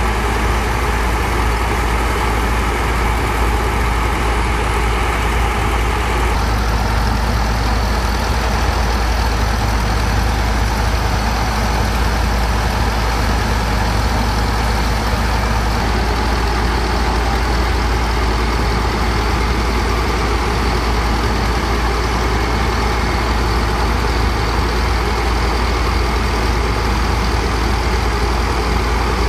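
Diesel engine of a sand-pumping barge running steadily, with the rushing hiss of water jetting from a hose.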